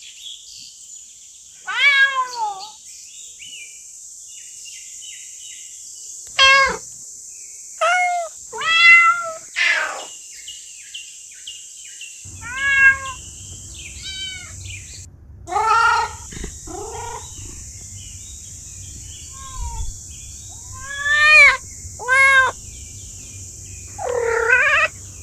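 Cats meowing, about a dozen separate meows, each rising and falling in pitch, over a steady high hiss; a low hum comes in about halfway through.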